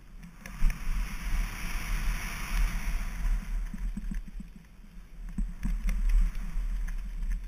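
Specialized Enduro mountain bike descending a loose dirt trail: tyres hissing over dirt and gravel, loudest in the first few seconds, with scattered clicks and rattles from the bike over bumps and a steady low wind rumble on the microphone.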